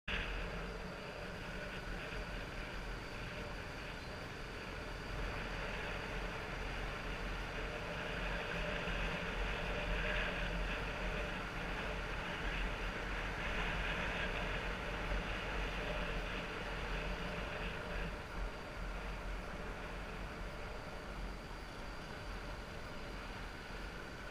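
Honda trail bike's engine running steadily while riding at an even speed, with wind rumbling on the microphone.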